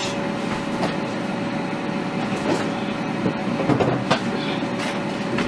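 Steady whooshing run of a kitchen appliance's fan, with a constant hum tone in it, and a few light knocks and clatters of kitchen handling on top, the loudest about four seconds in.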